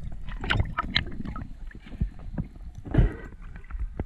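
Seawater sloshing and gurgling around an underwater camera, with many small irregular clicks and a louder slosh about three seconds in.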